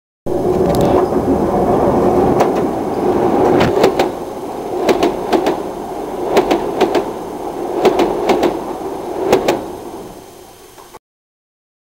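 Train passing overhead on a railway bridge, heard from beneath: a loud rumble with wheel clacks in groups of two or three about every second and a half as each car's wheels cross the rail joints, fading out near the end.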